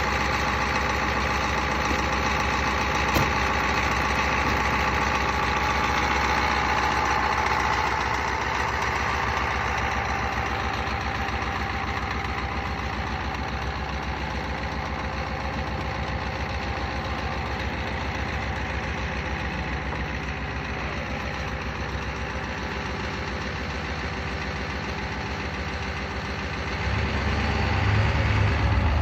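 Vehicle engine idling steadily after a hard start, with a high whine that fades out over the first ten seconds. Near the end it gets louder and deeper as the engine is revved up.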